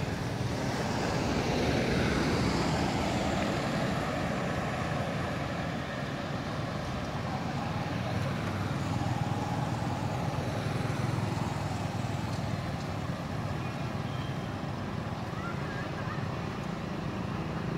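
Road traffic going by: one vehicle passes loudest about two seconds in, then a steady hum of road noise.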